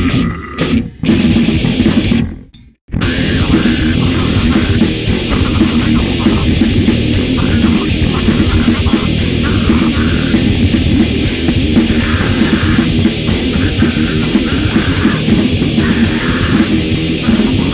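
A death metal band playing live with distorted electric guitars, bass and drum kit. The music cuts out in short stops in the first three seconds, then the full band crashes back in and plays on.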